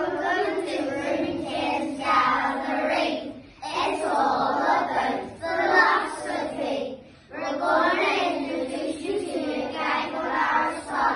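A group of young boys singing together in unison, in several phrases with short breaks between them.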